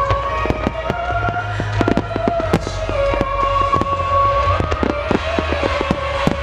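Wide starmine fireworks barrage: a rapid, irregular series of sharp bangs from shells bursting and launching. Beneath them runs music with a slow, held melody.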